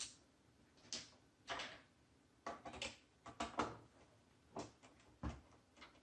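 Faint, irregular clicks and scrapes, about a dozen short ones, of a small hand driver turning the screws in the plastic back case of a handheld radio transmitter while it is held steady.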